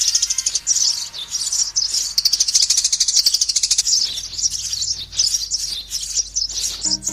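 Sparrows chirping in rapid strings of high, repeated chirps: a sparrow lure call.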